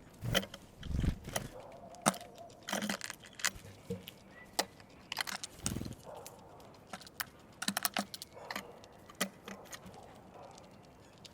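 Great tits pecking and tapping at food on a feeder close to the microphone: a quick, irregular run of sharp taps and clicks, with a couple of soft low thuds.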